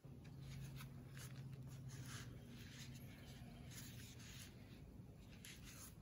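Faint, irregular scratching and rubbing as foam cushioning is worked into place around the base of a concrete post, over a low steady hum.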